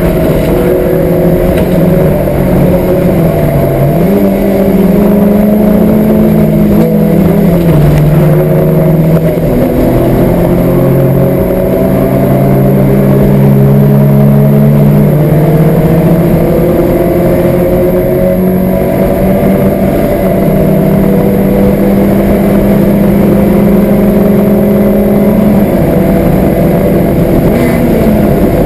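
Citroën Saxo's standard engine, with a Pipercross air filter and a four-branch exhaust manifold, running hard at track speed, heard from inside the cabin. Its pitch drops and climbs again several times with gear changes and lifts off the throttle.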